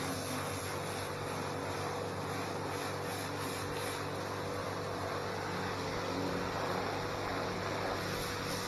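Stihl pressure washer running steadily: a constant motor-and-pump drone with a steady hiss of spraying water.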